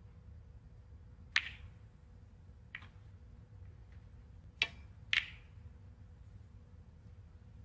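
Snooker shots: the cue tip striking the cue ball and the balls knocking together, heard as sharp single clicks, one about a second and a half in, a fainter one a little later, then two about half a second apart near the middle, over a faint arena hush.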